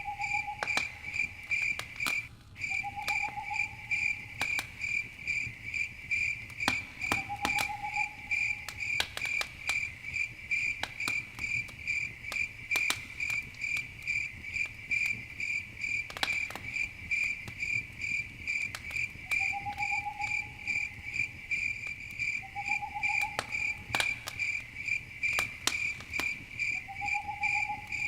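Crickets chirping in a steady pulsing trill, about three pulses a second, over a campfire crackling with irregular sharp pops. A short, lower rising call comes back every few seconds.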